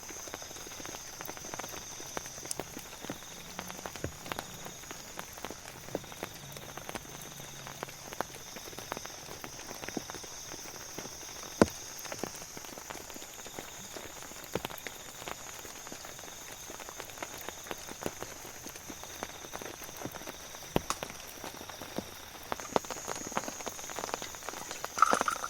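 Steady rain falling, with many irregular individual drops ticking on a surface and one sharper drop about halfway through. A faint steady high-pitched tone runs under it.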